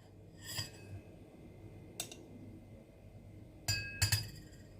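A spoon clinking against a glass cup as tablespoons of turmeric powder are measured into it: a light tap about two seconds in, then two sharper clinks near the end that ring briefly.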